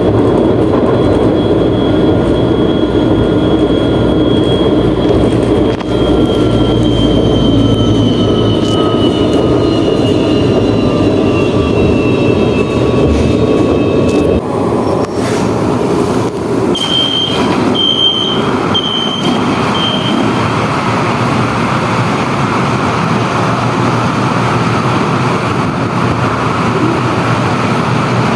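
Electric train heard from inside the carriage, with a steady rumble and a whine from the traction motors falling slowly in pitch as the train slows. About halfway in the sound changes, and a run of five short high beeps follows.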